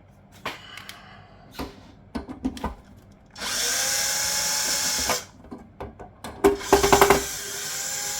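Power drill-driver running in two bursts of about two seconds each, its pitch rising as it spins up, driving out screws on a fuse box. Clicks and knocks of handling come before and between the bursts.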